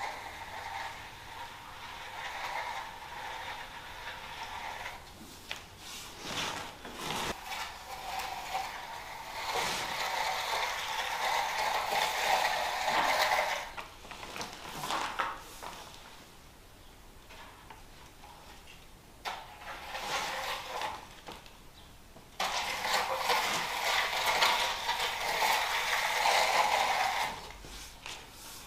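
Long-handled concrete float scraping and swishing across a freshly poured wet concrete floor in repeated strokes as the surface is smoothed. The sound is loudest in two long stretches, one near the middle and one near the end, with a quieter lull between them.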